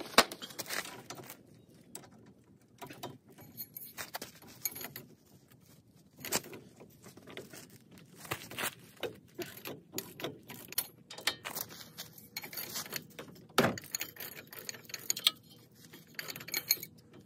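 Metal hand tools working the bolts on a truck's front steering knuckle and tie rod: irregular clicks and clinks of a socket wrench and metal parts, with a sharper knock right at the start.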